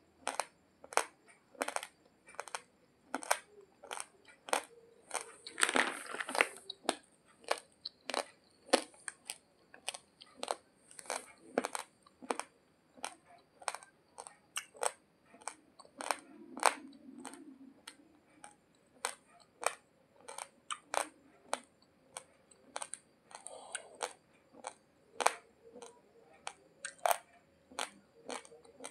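Raw basmati rice grains crunched between the teeth, close to the microphone: sharp crunches about twice a second, with a longer burst of crunching noise about six seconds in.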